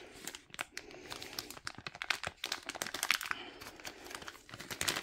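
Clear plastic toolkit bag crinkling as hands work at it, trying to pull the plastic tray out: an irregular run of sharp crackles.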